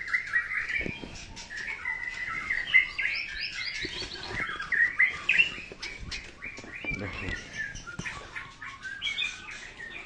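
Many caged songbirds chirping and calling over one another: a dense, unbroken run of short chirps and trills.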